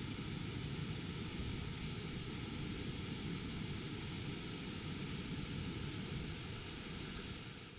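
Water pouring over a low weir, a steady rushing noise.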